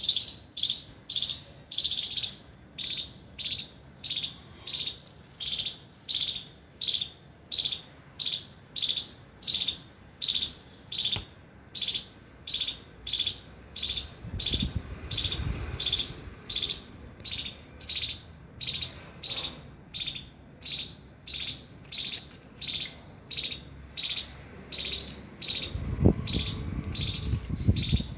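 An insect chirping in a steady, even rhythm, about two high pulses a second. Low rumbles come in twice, about halfway through and near the end, the second with a sharp knock, from the microphone being moved or brushed.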